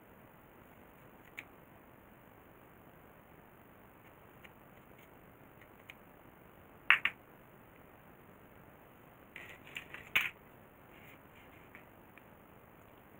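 Scissors cutting a small black piece by hand. The cuts are mostly quiet, with a sharp double snip about seven seconds in and a short cluster of snips and clicks around ten seconds in.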